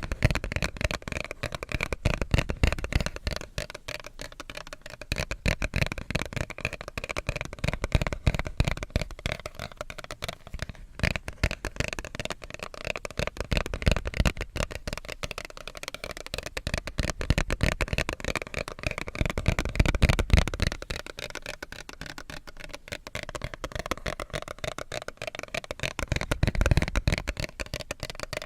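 Tapping and scratching on a paper card: dense, rapid crackly scratching with deeper thuds coming in spells.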